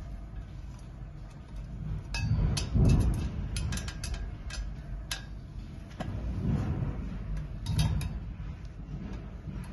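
Pliers and a screwdriver clicking and clinking against a gold-plated iron frame while a nut is tightened onto a screw, with a run of sharp metal clicks in the middle and a few more near the end, over dull handling noise.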